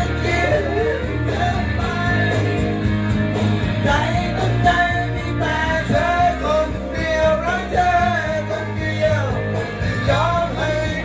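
Pop-rock song with a singing voice over guitar, bass and drums.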